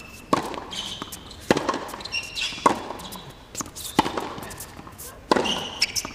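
Tennis rally on a hard court: sharp racquet strikes and ball bounces about once a second, with tennis shoes squeaking on the court between them, echoing in the closed-roof arena.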